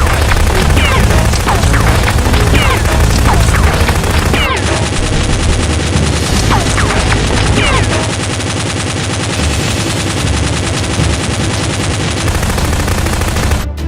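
Gunfire sound effects: rapid automatic fire in continuous bursts, with short falling whistles scattered through it, easing slightly about eight seconds in.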